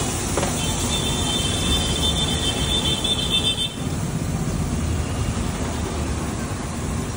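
Steady street-traffic rumble, with a vehicle horn sounding for about three seconds near the start.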